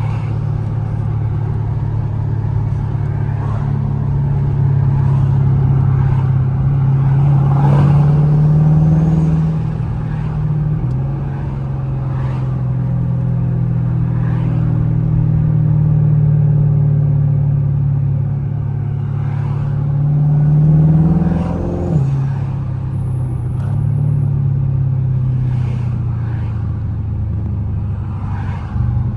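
Twin-turbocharged Dodge Charger 5.7 Hemi V8 running under way, a steady drone that twice climbs in pitch under moderate throttle and drops back sharply, about ten seconds in and again about twenty-two seconds in. A faint rising whistle rides on top as it climbs.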